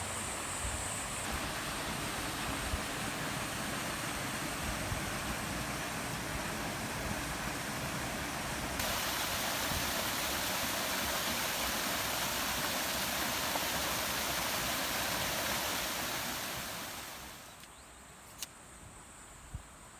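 Steady rush of a mountain stream's running water. It steps louder about halfway through and drops away near the end, with a single sharp click shortly after.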